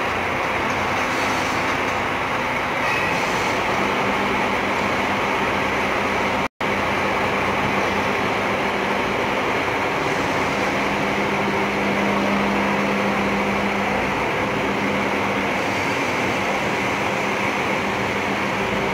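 Large diesel coach engine idling steadily, a constant even drone with a low hum, breaking off for an instant about six and a half seconds in.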